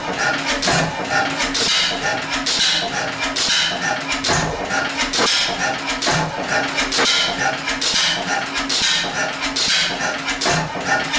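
Early 1911 Deutz E3 stationary gas engine running, with a steady rhythmic clatter and knocking from its valve gear and moving parts over a low hum.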